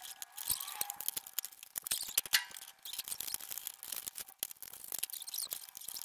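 Stiff clear plastic clamshell packaging crackling and crinkling as it is handled and cut open with scissors, a dense run of irregular clicks with one louder snap about two and a half seconds in.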